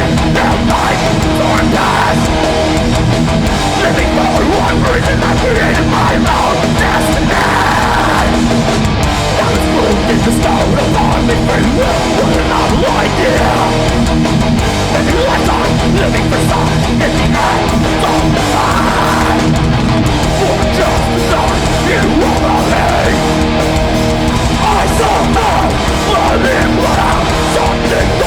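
Hardcore metal band playing live: loud distorted electric guitars, bass and drums, continuous without a break.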